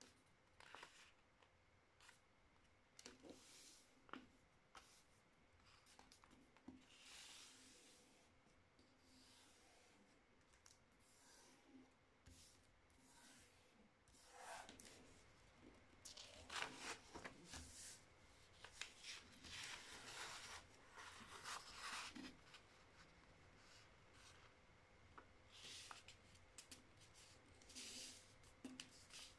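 Faint rustling and scraping of a sheet of printer paper being folded by hand, with fingers sliding along and pressing the creases flat, in short irregular bursts that are busiest about halfway through.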